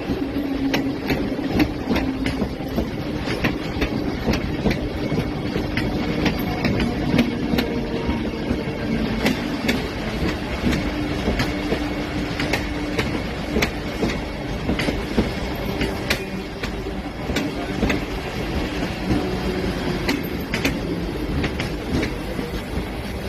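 Vande Bharat Express electric train running on the rails: a steady rumble and hum, with irregular clattering of the wheels over the track.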